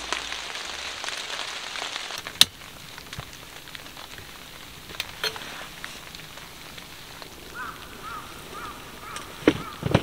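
Rain patter for about two seconds, then a single sharp click. After that it is quieter, with scattered clicks and knocks as a portable heater is lit, and a run of about six short high chirps near the end.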